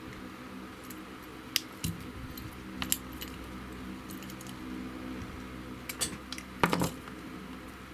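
A few sharp metallic clicks and clinks of small tools and parts being handled on a workbench, the loudest a double clatter near the end, over a steady low hum.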